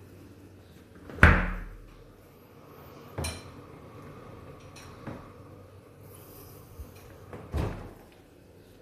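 A heavy thud, like a door or cupboard shutting, about a second in, followed by three lighter knocks spread over the next several seconds.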